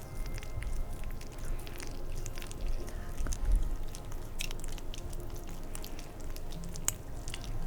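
Oiled hands massaging skin close to the microphone: soft, wet, sticky clicks and rubbing, scattered irregularly.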